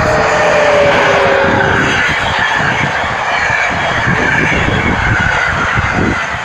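PKP Intercity passenger coaches rolling past close by: a loud, steady rush of wheels on rail. Two faint tones fall slightly in pitch during the first two seconds.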